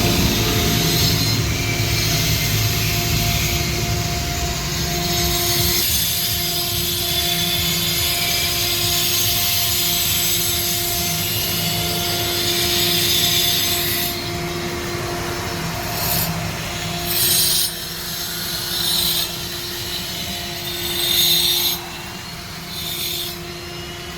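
CNC stone-carving router at work: the spindle runs with a steady whine while the cutter grinds and scrapes against the stone. The grinding hiss is continuous at first, then comes and goes in short bursts over the last ten seconds or so.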